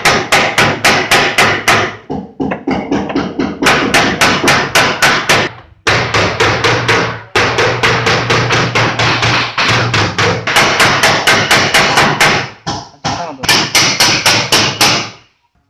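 Rapid, even hammering of a long flat body-repair tool on the dented sheet-metal front fender of an Audi Q3, about five blows a second, as the dent is worked out. The blows come in several runs broken by short pauses.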